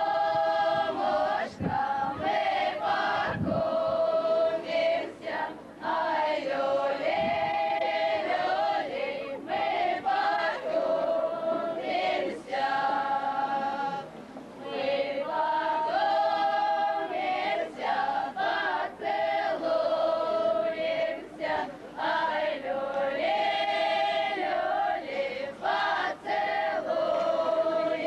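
Folk choir of women's and men's voices singing a song together, in short phrases of held notes with brief breaks between them.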